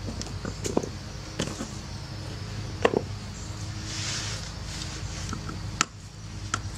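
Black leather dress shoes being pulled off and set down on a concrete patio: a few sharp knocks and scuffs, the loudest about three seconds in and another near the end, over a steady low hum.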